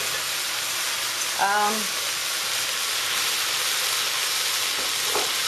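Sliced beef and vegetables sizzling steadily in a hot wok, just after the meat goes in.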